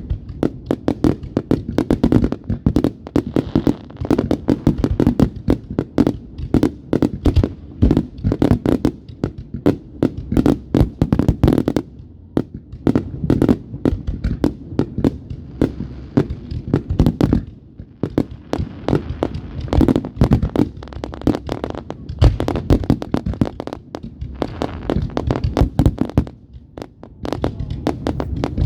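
Fireworks going off in a dense barrage: many sharp bangs and crackles a second, with a few brief lulls.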